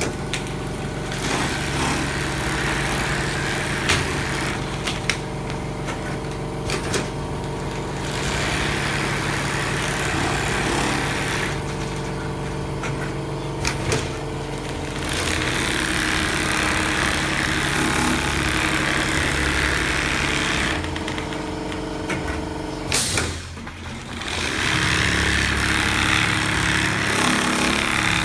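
Jinshao programmable pattern sewing machine stitching a quilting pattern at speed, the needle chattering in long runs that ease off between stretches, over a steady motor hum. Near the end a few sharp clicks and a brief lull come before the stitching picks up again.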